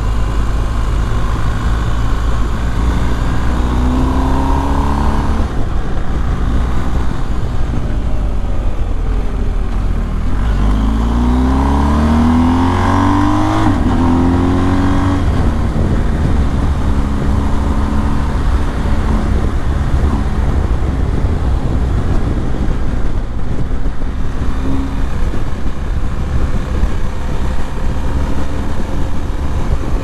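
BMW R 1250 GS boxer-twin engine running on the move, with steady wind rush on the microphone. About ten seconds in, it revs up and climbs in pitch as the bike accelerates, then settles again.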